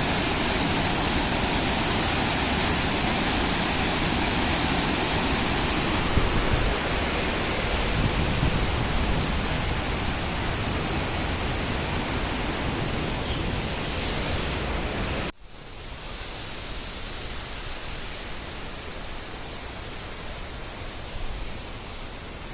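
Loud, steady rush of fast-flowing water, like a waterfall or rapids. About 15 seconds in it cuts abruptly to a quieter, softer rush of water.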